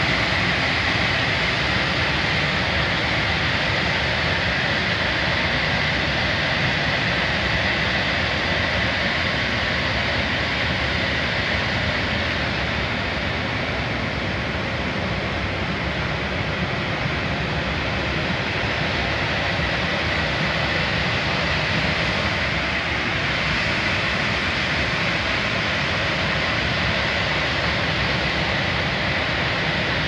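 Giant commercial air-conditioner outdoor units running behind a louvered wall: a loud, steady rush of fan noise with a faint high whine in it.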